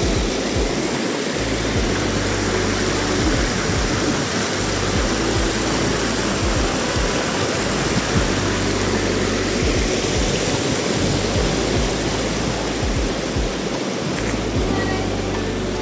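Steady rush of fast mountain water, a dense even noise, with a low rumble that drops out briefly now and then.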